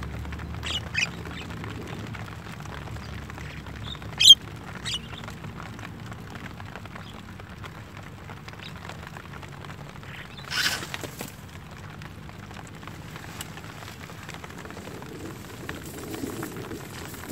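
Javan mynas (jalak kebo) giving a few short, high calls, the loudest about four seconds in, over a steady low rumble. About ten and a half seconds in comes a single half-second swish as the clap net springs shut over the feeding birds.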